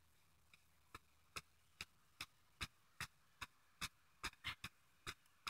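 Faint, regular tapping footfalls of a person jogging in place in heeled sandals, about two to three light taps a second.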